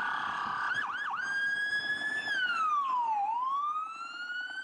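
Police car siren wailing: two quick chirps about a second in, then a long tone that sinks and slowly climbs back up.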